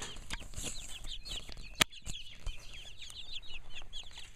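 A flock of young barred rock chickens, a couple of months old, peeping with many short high calls, one after another. A single sharp click comes a little under two seconds in.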